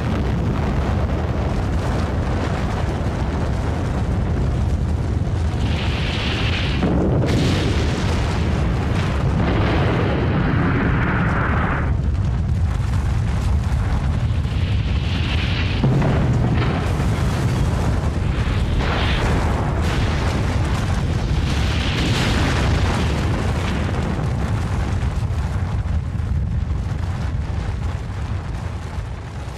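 Dramatised atomic bomb explosion: a long, heavy rumble that starts with the flash, with repeated swells of rushing, hissing noise as the blast wave sweeps through, fading near the end.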